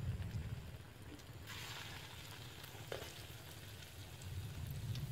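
Vegetable fritters frying in hot oil: a burst of sizzling starts about a second and a half in and lasts over a second. A single light knock comes near the end of the sizzle, and a low rumble sits under the start and the end.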